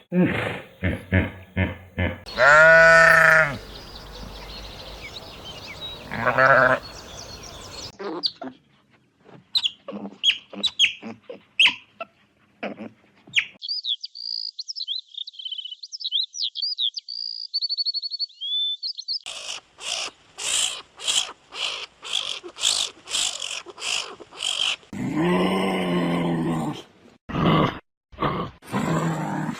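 A string of different animal calls cut one after another: a long bleat-like call, a stretch of high bird chirps, rapid repeated pulses, and another long call near the end.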